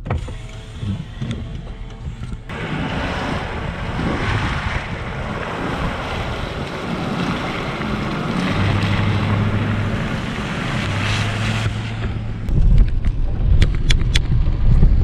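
Pickup truck driving on a wet, muddy gravel road: tyres hissing through water and slush, with wind rushing over the microphone. About twelve seconds in this gives way to a deeper rumble of road and engine heard from inside the cab, with a few sharp knocks near the end.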